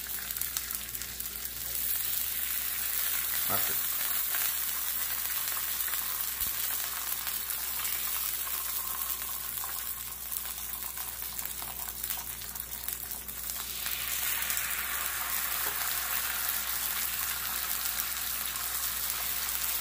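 Corn tortillas soaked in birria consommé sizzling and frying in a hot skillet, a steady hiss of fat and broth. It gets louder near the start and again about two-thirds of the way through as more dipped tortillas go into the pan.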